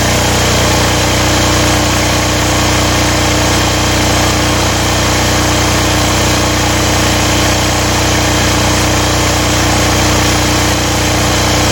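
Aurora AGI6500DE portable generator's single-cylinder air-cooled diesel engine running steadily at governed speed, lightly loaded by a 300-watt work light.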